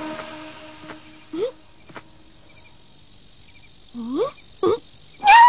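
Crickets chirping steadily in the background. A few short rising squeaks come through about a second and a half in and again around four seconds, and a louder, voice-like cartoon cry starts near the end.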